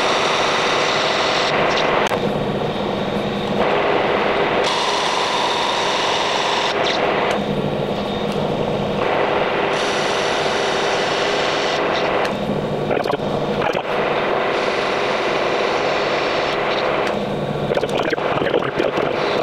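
Metal lathe running and turning a bronze bar down with a single-point tool in light passes toward finished diameter. A broad cutting hiss comes and goes several times; in the short gaps between cuts a lower machine hum stands out.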